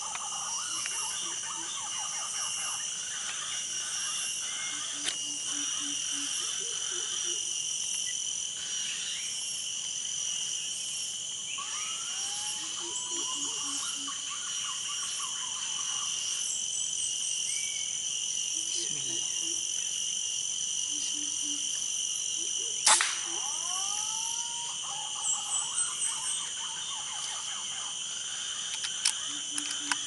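A steady high insect drone, with green pigeons (punai) giving curving whistled calls a few times. One sharp crack a little past two-thirds through is the loudest sound.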